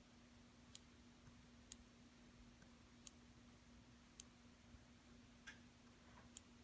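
Faint, sharp ticks of a Surface Pen's tip tapping down on the Surface Pro 4's glass screen as each brush stroke is drawn: about six taps, roughly a second apart, over a faint steady low hum.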